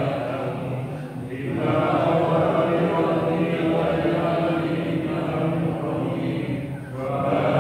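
Men chanting an Islamic devotional recitation together in long held phrases. There is a short break for breath about a second in and again near the end.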